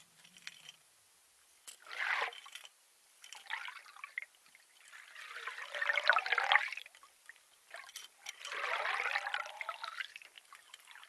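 Water trickling and gurgling in four irregular bursts, the longest and loudest about halfway through.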